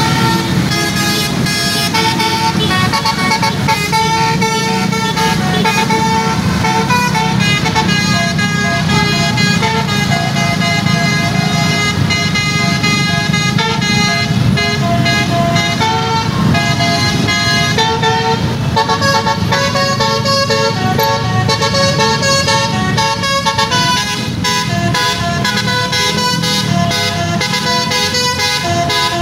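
Sanjaya Trans bus's basuri musical air horn playing a continuous tune of held notes that step from pitch to pitch, over the low, steady rumble of engines and motorcycles in a traffic jam.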